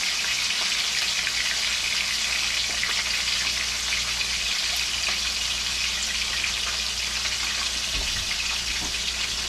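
Hot cooking oil sizzling steadily as food fries in a pan, an even hiss.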